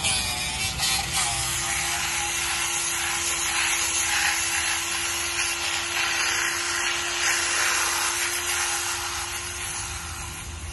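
Electric drill spinning a sanding disc against the inside of a carved walnut bowl: a steady motor hum under the continuous hiss of abrasive on wood, tailing off near the end.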